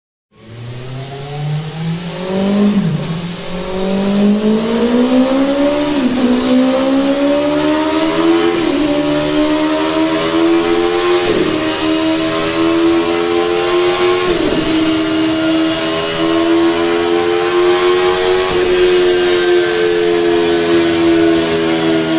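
BMW S 1000 R inline-four engine breathing through a Mivv MK3 slip-on silencer, accelerating hard and shifting up through the gears. The pitch climbs and falls off sharply at about five upshifts, then holds steady at high speed.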